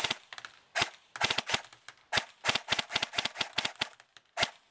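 Valken Battle Rifle airsoft electric gun, fitted with a high-torque motor and an 11.1 V LiPo battery, firing a string of shots. Sharp clicks come singly and in quick irregular groups, several a second.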